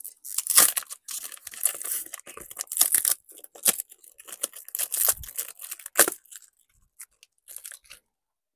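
Packaging of a new clear distributor cap being torn open and crinkled by hand: a run of irregular rips and rustles with a few sharper tears, stopping about eight seconds in.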